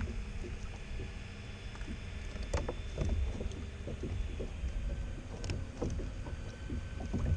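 Scattered knocks and bumps on a sit-on-top kayak's plastic hull, over a steady low rumble of water and wind.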